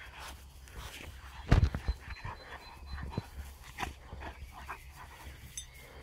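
A Labrador panting while it rolls on its back in the grass, with short irregular rustles. A brief low thump about a second and a half in.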